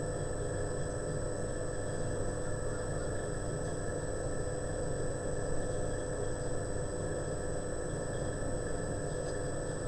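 Steady low background hum and hiss of room tone, with no distinct sound events.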